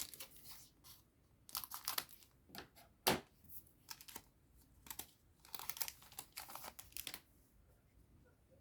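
Foil wrapper of a Digimon Card Game booster pack being torn open and crinkled, in a series of short rustling bursts, with one sharper knock about three seconds in. The rustling stops about seven seconds in.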